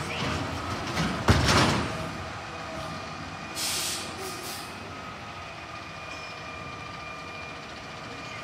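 Side-loading garbage truck stopping at the curb: a sharp, loud burst of air about a second in, then a shorter high hiss of air around four seconds, after which the truck runs steadily with a faint even whine over the engine.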